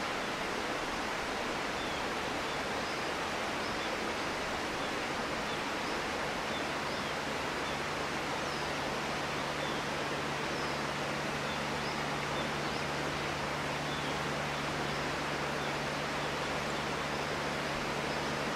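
Steady, even hiss of outdoor ambience, with faint short high chirps scattered throughout. A low steady hum comes in about seven seconds in.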